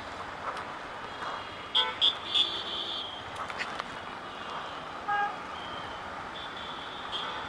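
Busy city road traffic heard from a slow-moving motorcycle, with a quick run of loud horn toots about two seconds in and one more short toot about five seconds in.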